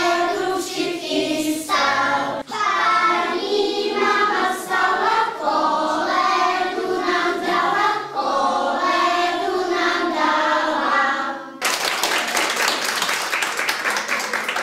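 A group of young children singing together. About three seconds before the end the singing stops and the audience breaks into applause.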